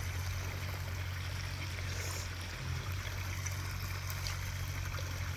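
Steady trickling and splashing of water from a backyard koi pond's waterfall, over a steady low hum.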